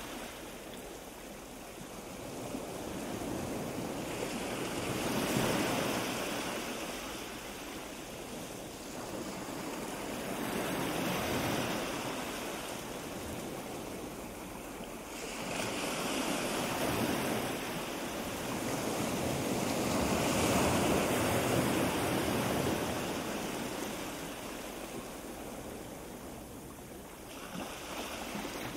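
Wind gusting against the microphone: a rushing noise that swells and dies away every few seconds.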